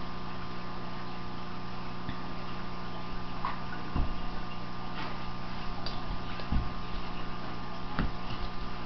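Steady electrical hum with a few soft thumps and clicks from two dogs play-wrestling on a carpet.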